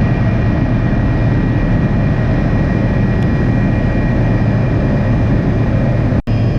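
Helicopter running at a loud, steady level, a constant engine drone with a high whine on top. It cuts out for an instant near the end.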